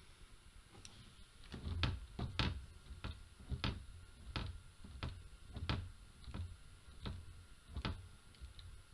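A run of about ten light taps or knocks, evenly spaced a little under a second apart, starting about a second and a half in.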